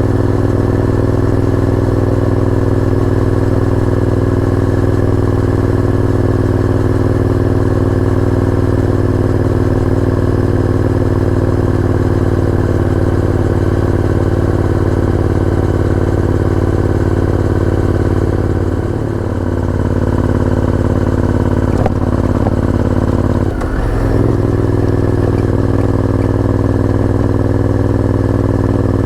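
Honda VTR1000F's 90-degree V-twin engine running at a steady pitch. Twice near the end its note briefly drops off and comes back.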